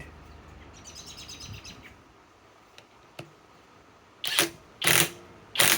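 Cordless compact impact wrench given three short trigger pulls, each a brief loud burst about half a second apart, to start a lag screw into pre-drilled wood.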